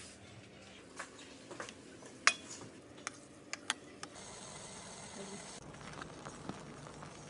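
Clinks and knocks of kitchen utensils and dishes being handled, one sharp knock about two seconds in louder than the rest, followed by a short steady hiss.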